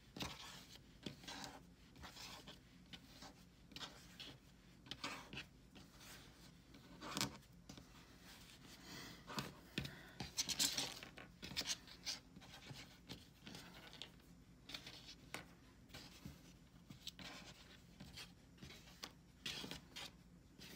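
Fleece strips rustling and scraping over a cutting mat as hands weave and pull a square knot tight: faint, irregular rubs and scrapes, busiest about halfway through.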